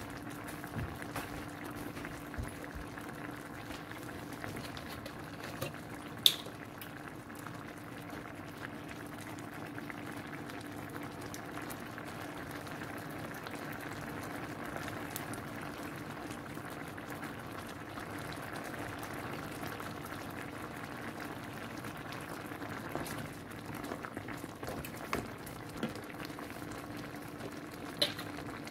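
Creamy coconut-milk sauce with mussels bubbling steadily at a simmer in a pan, over a steady low hum. A few sharp clicks stand out, one about six seconds in and one near the end.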